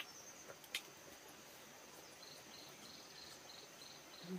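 Faint insect chirping: short high chirps repeating evenly about four times a second over a steady high trill, with one faint click under a second in.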